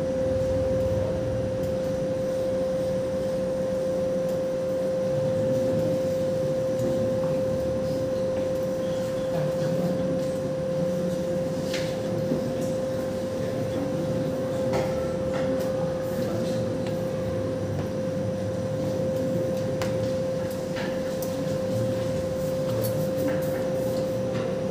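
A steady hum held at one pitch over a low room murmur, with a few light clicks.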